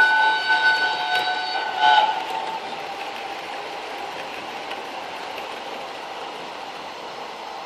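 Sound decoder in a Bachmann Tornado model locomotive playing a steam whistle of several tones at once, which ends about two seconds in. A steady steam hiss carries on after it.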